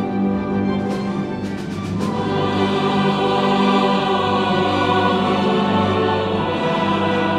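Symphony orchestra playing slow classical music in sustained chords, swelling louder about two seconds in.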